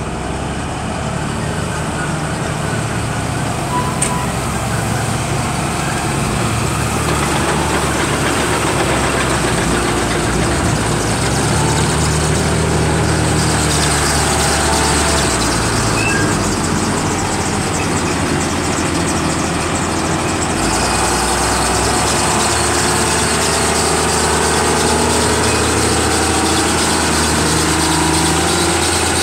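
Hyundai HL740-7 wheel loader's diesel engine running steadily, its engine speed shifting about a third of the way in and again about two-thirds through as the boom is worked.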